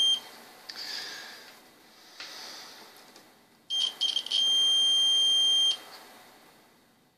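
Multimeter continuity beeper sounding as test probes touch diode leads on a power-supply board. A few short, broken beeps come as the probes make contact, then one steady high-pitched beep of about a second and a half that cuts off. A brief tail of an earlier beep is heard at the very start.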